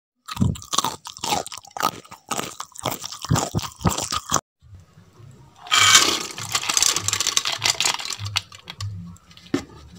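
A quick run of sharp, irregular crunches, like crunchy food being bitten and chewed, for the first four seconds. It stops abruptly. After a short gap comes a hissing rush over a low, regular thudding about twice a second.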